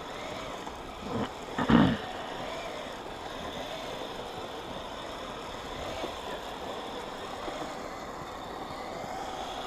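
Kyosho Blizzard FR RC snow tractor running on its tracks, a steady motor-and-gear whine that wavers in pitch with the throttle. A brief louder sound comes twice between one and two seconds in.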